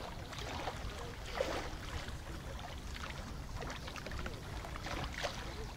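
Lake-shore ambience: a steady low wind rumble on the microphone, with water lapping and a few faint, scattered distant sounds from people swimming.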